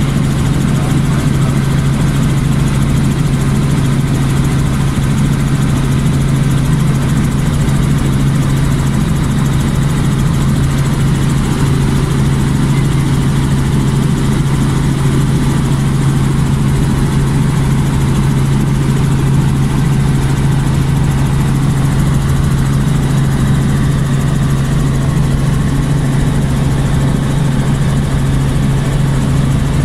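Light helicopter in flight heard from inside the cabin: the engine and main rotor make a loud, steady drone with a strong low hum that holds one pitch.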